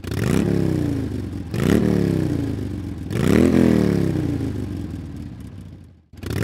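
Motorcycle engine revved three times, each rev climbing quickly and falling back more slowly; the third winds down and cuts out about six seconds in, and another rev starts right after.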